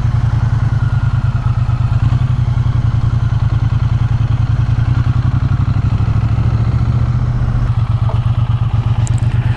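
A 2023 Triumph Bonneville T100's 900 cc parallel-twin engine running steadily at an even speed, with a regular pulsing exhaust note.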